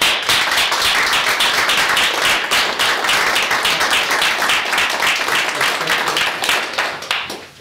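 Audience applauding: dense, steady clapping that starts at once and dies away near the end.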